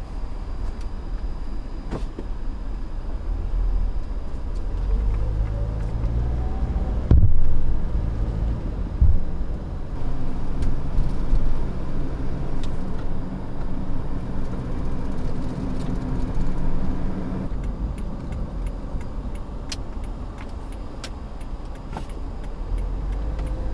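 Toyota Corolla Altis driving, heard from inside the cabin: a steady low rumble of engine and road noise. The engine note rises about five seconds in and holds steady for several seconds in the middle. A loud thump comes about seven seconds in and another near nine seconds.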